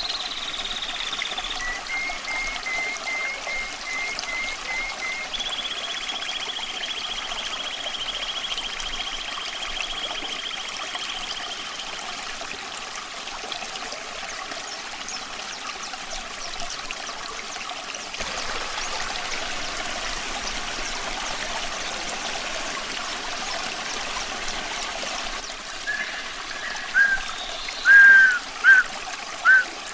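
A stream of running water trickling steadily, with a nightingale singing over it. The song has a long high held note, a quick run of short repeated notes and another long trilled note, and near the end a series of loud slurred whistles, the loudest sounds here.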